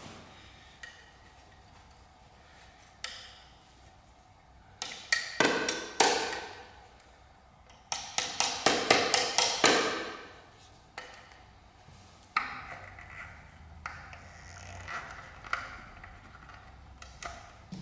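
A small hand tool tapping and prying at the metal rivets of a carbon-fibre Akrapovic motorcycle exhaust sleeve: bursts of sharp metallic taps and clicks, densest in a quick run about eight to ten seconds in.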